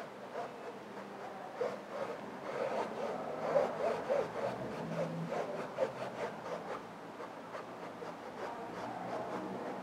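Wet paintbrush making short, irregular strokes on a stretched canvas, a soft scratchy rubbing as acrylic paint is worked in.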